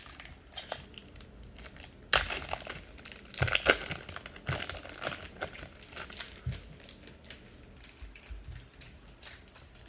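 A trading-card pack wrapper being torn open and crinkled, starting abruptly about two seconds in, followed by quieter clicks of the cards being handled.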